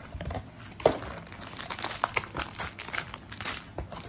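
Paper and plastic model-kit packaging crinkling and rustling in the hands as the box is opened and the manual and bagged parts are handled: irregular crackles, with one louder sharp click about a second in.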